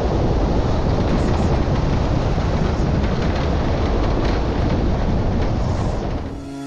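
Steady wind rushing with a deep rumble, fading out near the end.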